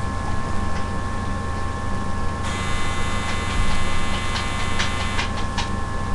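Steady low electrical hum with a few faint constant whine tones above it. About two and a half seconds in a hiss rises over the hum, and a few light clicks follow near the end.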